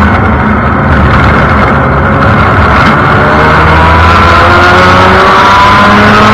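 Formula Mazda race car's Mazda rotary engine, heard from on board, running loud under load. It eases off slightly just after the start, then climbs steadily in pitch as the car accelerates, dropping back at an upshift right at the end.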